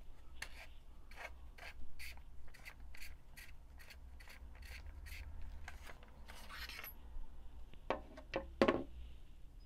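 Barrel of a Mission TPR less-lethal launcher being twisted out by hand: a run of light clicks and scrapes, about two a second, then a longer scrape as it comes free. Two knocks near the end.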